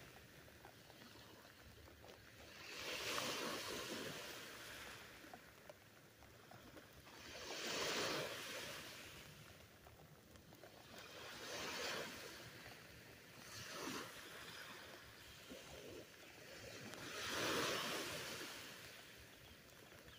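Surf waves breaking and washing up on a sandy beach, swelling and fading about every four seconds, heard through a hat draped over the phone.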